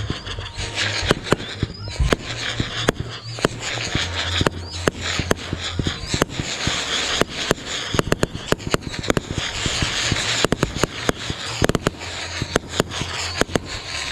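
Fireworks going off: a dense run of sharp pops and bangs over a steady crackle, coming thick and fast and busiest in the second half.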